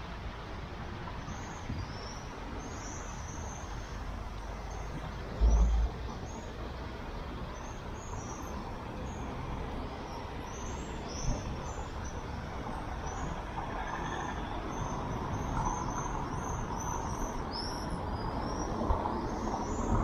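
Street ambience: a steady hum of traffic, with small birds chirping again and again high above it. A brief low thump comes about five and a half seconds in, and a vehicle grows louder near the end.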